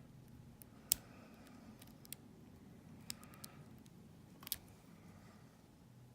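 Faint, scattered metallic clicks of a lock pick probing the pins of a small Cisa padlock held under a tension wrench. The sharpest tick comes about a second in and another about four and a half seconds in.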